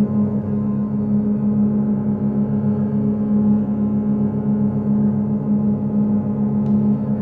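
Double bass bowed in one long sustained drone, layered with further bass tones into a dense, steady mass around a single low pitch. The sound wavers slightly in loudness as the close tones beat against each other.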